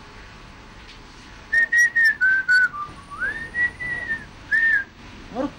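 A person whistling a short tune: a few quick high notes about a second and a half in, then a longer note that slides up and back down, then one more short note.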